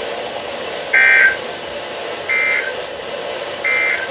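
Emergency Alert System end-of-message signal: three short bursts of digital data tones, a little over a second apart, marking the end of the alert. They play over steady radio hiss, and the first burst is the loudest.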